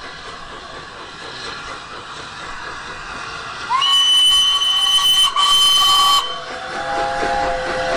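Steam locomotive whistles over a steady steam hiss. About halfway in, a loud, shrill single-note whistle sounds for roughly two and a half seconds with a brief break. It is followed at once by a lower chime whistle sounding three notes together.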